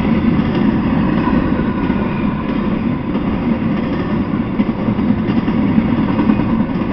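Intermodal freight train of container cars rolling past steadily: a continuous noise of wheels on the rails, with no distinct clicks or horn.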